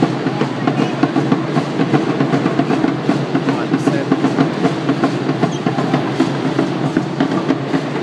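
Drums beating a fast, driving rhythm for a troupe of Aztec-style dancers, echoing through a large arena, with voices in the crowd underneath.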